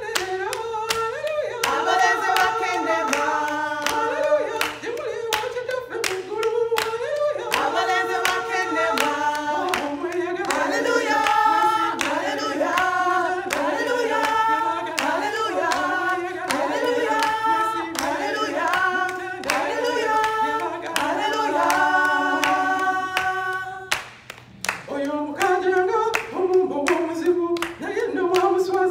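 Women singing together without instruments, one voice leading at a microphone, over steady rhythmic hand-clapping. The singing breaks off briefly near the end, then starts again.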